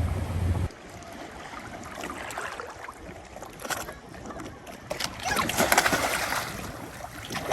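Water sloshing and splashing around a boat, in uneven surges that are loudest a little past the middle. A low steady hum cuts off suddenly just under a second in.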